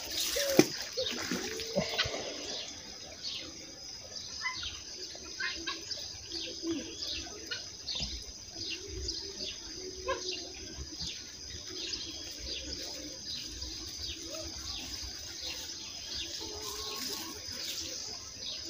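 Birds chirping over and over against a steady high-pitched drone, with one sharp knock about half a second in.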